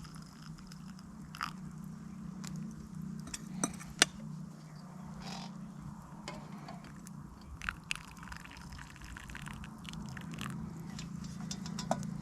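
Campfire crackling, with scattered sharp pops over a steady low hum.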